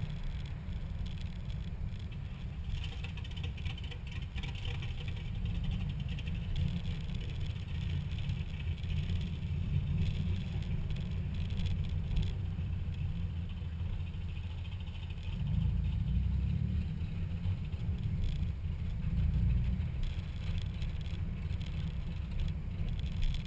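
Car driving slowly, heard from a camera on its hood: a steady low rumble of engine and wind on the microphone, growing a little stronger about two-thirds of the way through, with faint light rattles.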